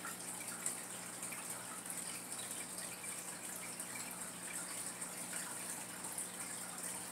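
Aquarium water circulating: a steady trickle with small scattered bubbling pops over a low, even hum from the tank's equipment.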